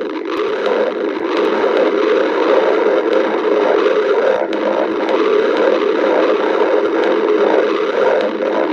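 A hungry person's stomach growling: a continuous rumbling gurgle with irregular swells and a few faint clicks.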